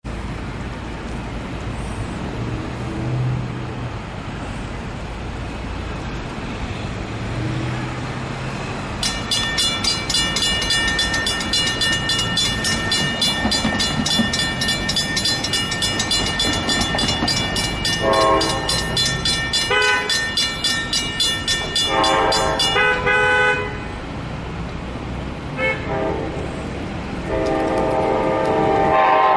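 A grade-crossing warning bell rings rapidly and steadily, starting about nine seconds in and stopping suddenly some fourteen seconds later. Meanwhile the horn of an approaching SEPTA Regional Rail train's ex-NJT Comet I cab car sounds several blasts of differing length, the last and longest near the end, over a low rumble of the train and traffic.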